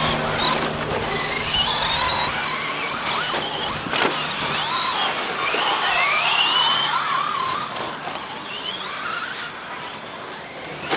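Several 1/10-scale 2WD short course RC trucks racing, their electric motors whining and rising and falling in pitch as they accelerate and brake, several at once. A sharp knock about four seconds in, and the whine fades somewhat in the last few seconds.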